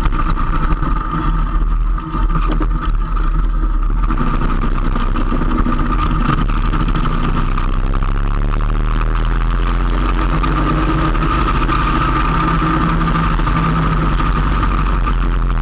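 Motorcycle engine running steadily while riding at road speed, with road and wind noise. The engine note shifts slightly a few times.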